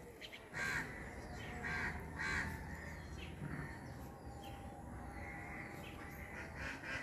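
Short, harsh animal calls repeating: about four in the first three and a half seconds and a few more near the end.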